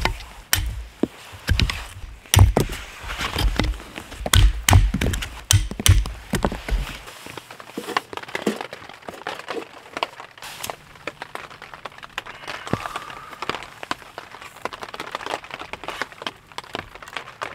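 Knife blade chopping into wood on a stump, sharp strikes about twice a second for the first several seconds. After that, lighter clicks and knocks of wood and a small metal wood stove being loaded and lit.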